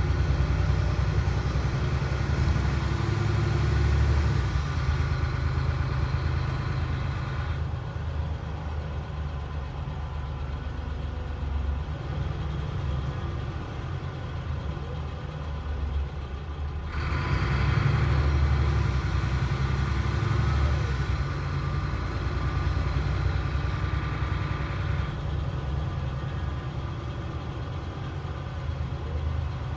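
Passenger cabin of a DAF SB4000 bus with Jonckheere body under way: a steady low engine drone with road and body noise. The higher rushing noise drops away about eight seconds in and comes back loud about seventeen seconds in.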